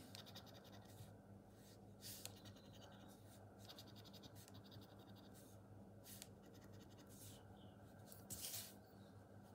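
A coin scraping the silver coating off a paper scratch card in short, faint strokes with pauses between them.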